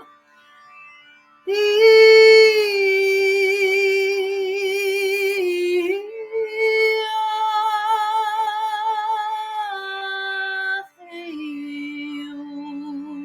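A woman singing a wordless soul song: long held notes with vibrato. She comes in about a second and a half in, moves between a few pitches in phrases of a few seconds, and settles on a lower note near the end.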